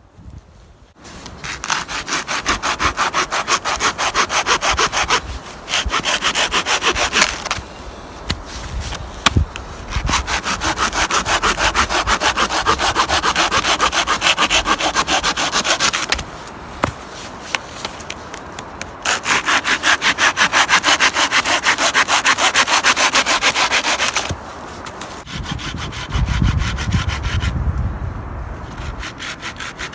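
Hand saw cutting through wood in several bouts of fast, even back-and-forth strokes, with short pauses between bouts. A low rumble comes in near the end.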